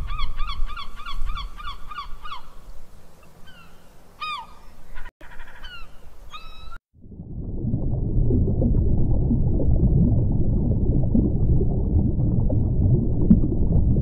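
A flock of gulls and terns calling: a fast run of repeated harsh calls, then scattered single calls. About halfway through, after a cut, a steady low rumble of water in an aquarium tank takes over.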